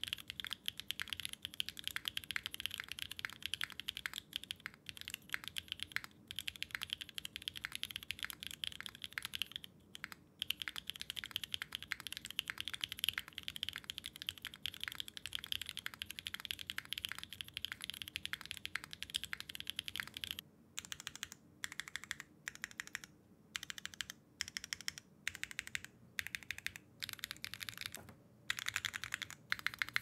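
Clacky typing on a Neo65 65% mechanical keyboard with factory-lubed Kailh BCP linear switches on a carbon fiber plate, no foam: fast, steady key strikes. About twenty seconds in, the typing breaks into short separate runs of key presses with pauses between, and fast typing picks up again near the end.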